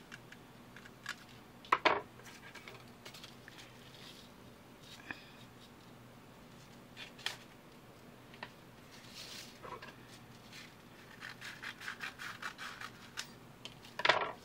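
Sandpaper being folded and creased against a ruler: paper scratching and rubbing with scattered small ticks, a quick run of them late on, and two sharp clacks, the louder one near the end.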